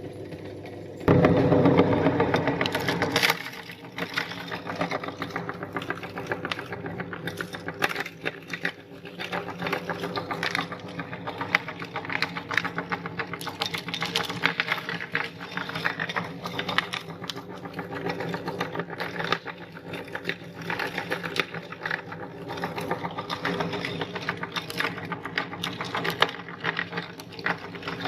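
Electric meat grinder starting about a second in and running with a steady motor hum, loudest for its first two seconds, overlaid by dense irregular crackling and clicking as mango candies are forced through it.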